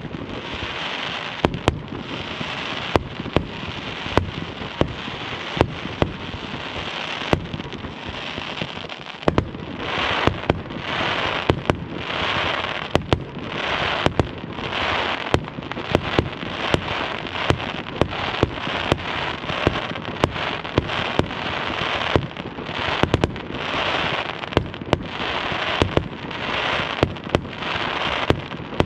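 Fireworks display: a rapid series of sharp bangs from exploding shells, over a continuous crackling hiss that swells in pulses about once a second from about a third of the way in.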